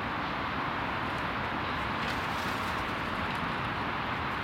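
Steady outdoor background noise: an even rush at a constant level, with no distinct calls or knocks standing out.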